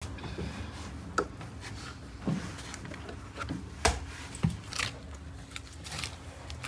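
Butchers' knives cutting beef on wooden boards: irregular knocks as the blades strike the board, with softer slicing and scraping of meat, over a steady low hum.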